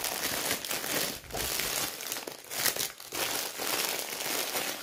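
Packaging of a diamond painting kit crinkling as it is handled and opened, in uneven bursts with short pauses.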